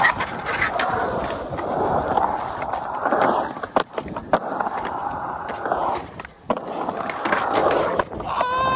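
Skateboard wheels rolling over a smooth concrete bowl: a steady rolling rush with sharp clacks and knocks from the board along the way. Near the end a person lets out a long yell that rises and then falls.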